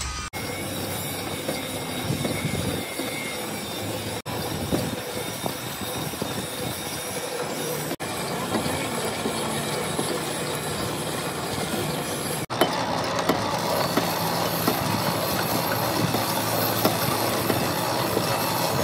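Steady, clattering heavy machinery noise with metallic rattle and screech, cut off abruptly and resumed about every four seconds.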